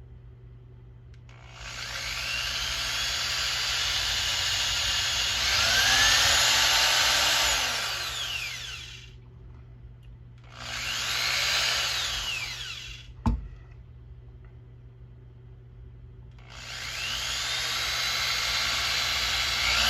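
Handheld electric drill boring holes in three runs, the motor whine rising as it spins up and falling as it slows each time. A single sharp click comes between the second and third runs.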